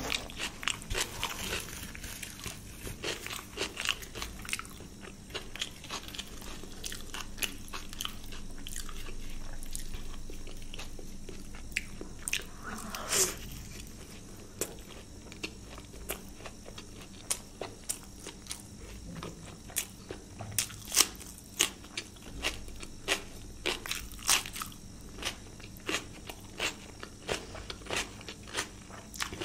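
Close-miked eating: chewing mouthfuls of luchi (puffed deep-fried flatbread) dipped in paneer curry, with many irregular sharp wet mouth clicks and crunches.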